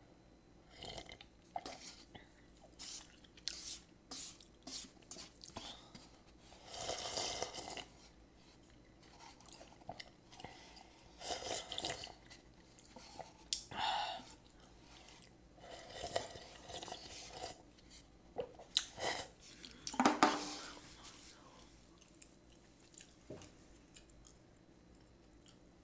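A person eating close to the microphone: sips and swallows of instant-ramyun broth drunk straight from the cup, mixed with chewing and small clicks. The sounds come in irregular bursts, the loudest about twenty seconds in, and it is much quieter for the last few seconds.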